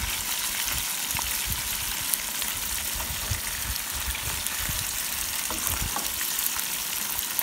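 Trout frying in a pan, a steady sizzle, with a spatula scraping and turning the pieces and a few soft knocks as the pan is handled.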